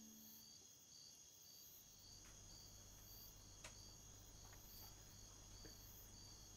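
Near silence: faint night ambience of crickets chirping in an even pulse, about twice a second, over a low hum. The last notes of background music die away just at the start.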